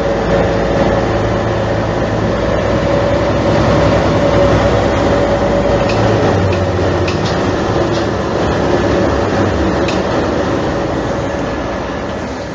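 Mercedes-Benz O345 city bus's diesel engine idling at a standstill, with a steady whine over the engine noise. The sound fades out near the end.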